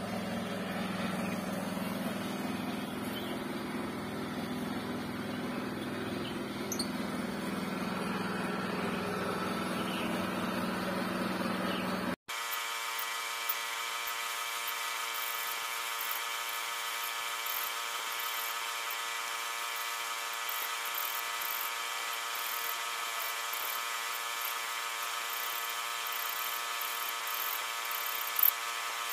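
For the first twelve seconds a steady low hum with some noise. Then, after a sudden cut, a small air compressor runs steadily with a whine of many even tones, and a spray gun gives short high hisses as it sprays melamine gloss lacquer.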